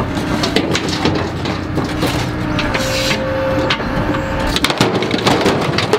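Daewoo 75V mini excavator's diesel engine running under hydraulic load as it swings a bucket of pond muck over a dump truck, with a brief higher whine about three seconds in. Knocks and clanks from the bucket and its linkage, more of them near the end as the load goes into the truck bed.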